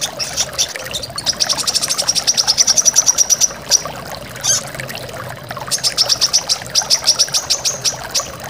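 Brown-throated sunbird (kolibri kelapa) singing long rapid trills of sharp high notes, about a dozen a second, in two runs each a couple of seconds long, over the steady rush of a waterfall.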